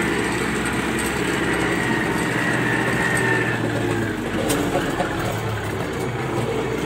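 MTZ-82 tractor's four-cylinder diesel engine running steadily, heard from inside the cab, with a high steady whine over it that fades out a little past halfway. There is a single light click about four and a half seconds in.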